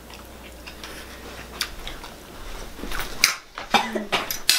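Metal forks clinking and scraping against plates and a foil tray while eating. The clicks come sparsely at first, then several sharper, louder ones in quick succession over the last second and a half.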